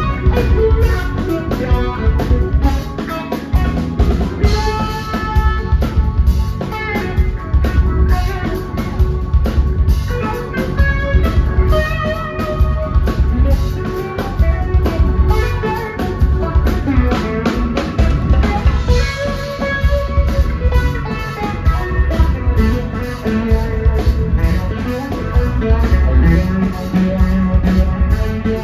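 Live band playing an instrumental passage: drum kit with a steady kick drum and snare, bass and electric guitar under held chords.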